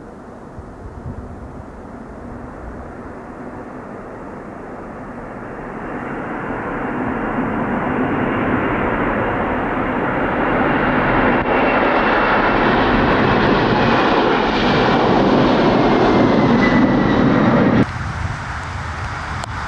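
Airplane engine noise growing steadily louder as the aircraft comes closer, with a faint whine sliding slowly down in pitch. It cuts off suddenly near the end, leaving a quieter rushing sound.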